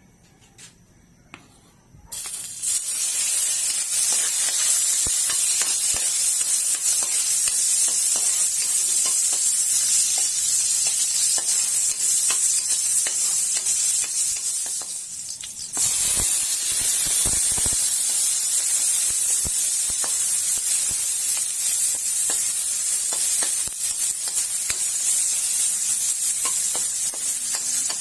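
Garlic and spring onion sautéing in hot oil in a pan, sizzling steadily from about two seconds in, with a brief dip near the middle and small clicks of stirring.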